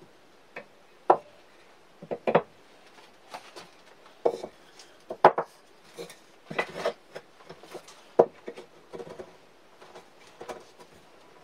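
Wooden table-base parts (legs and tenoned stretchers) knocking and clacking against each other and the workbench as they are handled and dry-fitted. About a dozen irregular knocks, the sharpest about a second in, about five seconds in and about eight seconds in.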